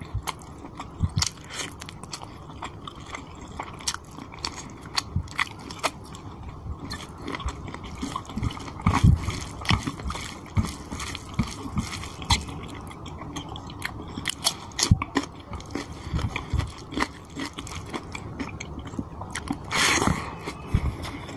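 Close-miked eating of chicken curry and rice by hand: irregular wet chewing and biting, with smacking lips and the squelch of fingers mixing the saucy rice. A longer, louder wet burst comes near the end as a handful goes into the mouth.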